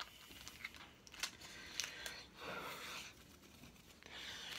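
Faint handling of a trading card and a plastic binder page: the card slid into a sleeve pocket, with soft rustling and a few light clicks and taps.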